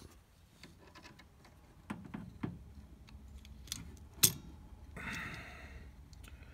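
Small metallic clicks and taps from crimping pliers and a butt connector being worked onto a wire inside an appliance's sheet-metal housing, with one sharp loud click a little past four seconds in. A short scraping sound follows about five seconds in.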